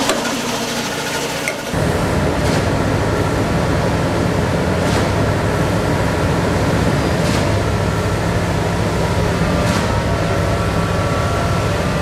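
Heavy construction machinery running with a steady engine drone. About two seconds in the sound changes abruptly to a deeper, steadier drone, with a faint click roughly every two and a half seconds.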